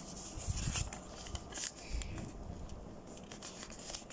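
Origami paper rustling and crinkling as a sheet is handled and creased by hand, with irregular soft crackles and small taps.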